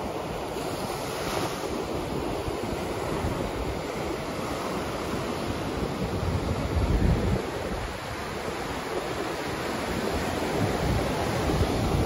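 Ocean surf breaking and washing up the beach in a continuous rushing hiss, swelling loudest about seven seconds in. Wind buffets the microphone with low rumbles.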